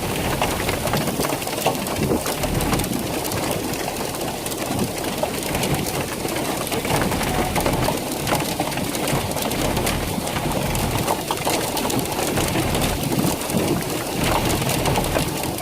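Heavy rain falling steadily, a dense patter of drop impacts over a low rumble.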